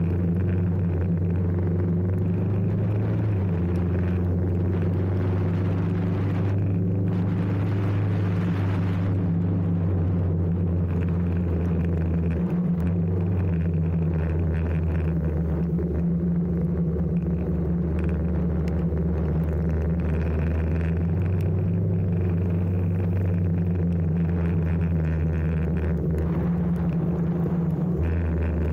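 Honda CBR500R's parallel-twin engine running at cruising speed, its note shifting slightly a few times with the throttle. Wind and the hiss of tyres on a wet road run under it.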